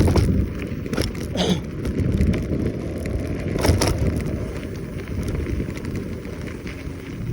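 Riding noise from a Kaabo Wolf Warrior 11 Pro electric scooter: a steady low rumble of wind on the microphone and tyres, with a few sharp knocks and rattles, at the start, about a second in, just after, and near four seconds.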